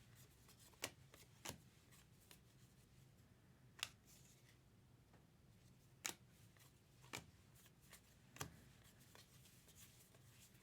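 Faint sparse clicks and slides of trading cards being flipped through by hand, about six in all.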